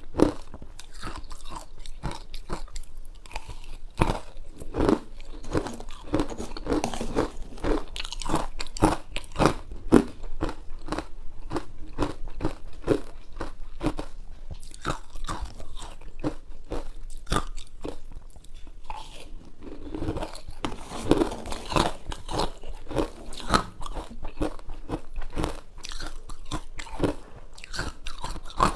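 Close-up crunching and chewing of ice: a steady stream of sharp, irregular crunches as the ice is bitten and chewed.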